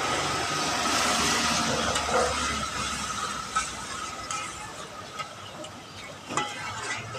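Hot oil sizzling as curry puffs deep-fry in a large wok, stirred with a perforated metal skimmer. The sizzle is loudest in the first few seconds and then eases, with a thin steady tone underneath and a couple of sharp clinks of the skimmer against the wok.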